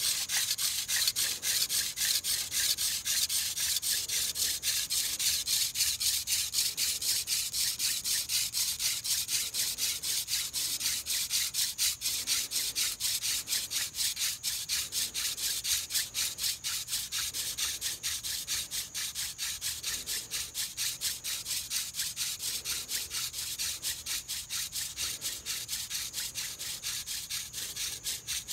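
Mullein hand-drill spindle spun back and forth between the palms in a wooden hearth board: a fast, even, rasping rub of wood on wood, the hands floating down the spindle as they drill.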